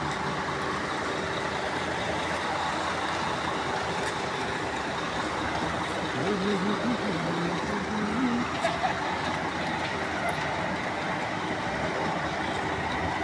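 Steady running of a heavy vehicle or road-construction machine engine, an even mechanical rumble and hiss, with faint voices in the background partway through.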